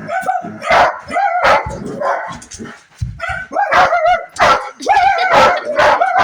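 A dog barking and whining over and over while playing, with short barks between pitched whines that slide up and down.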